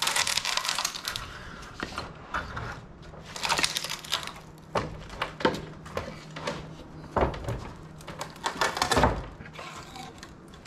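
2x6 framing lumber being handled: wooden boards knocking, scraping and clattering against each other and the lumber stack in an irregular series, loudest near the end.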